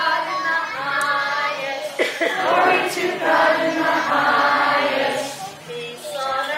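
A choir of young children singing together, with a woman's voice singing along and leading them.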